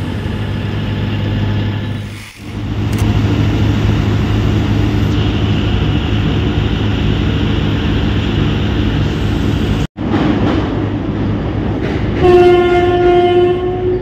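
Heavy diesel construction machinery running steadily with a low hum, broken off suddenly twice. Near the end a single loud horn blast is held for about two seconds.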